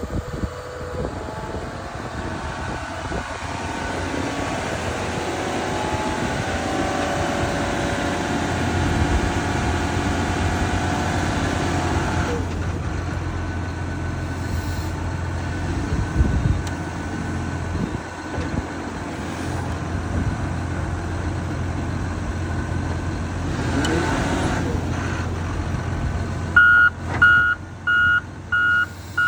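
Diesel engine of a wheel loader with a bale squeeze attachment running under load, with a whine over the first twelve seconds that cuts off suddenly. Near the end its reversing alarm starts beeping steadily, about one and a half beeps a second.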